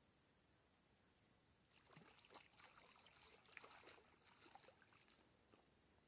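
Near silence: a faint, steady high-pitched insect drone, with a few faint scrapes and clicks in the middle.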